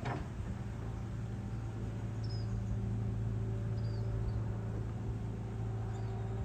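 Distant hydraulic excavator's diesel engine running steadily, a low even drone. A few short, high bird chirps come through over it.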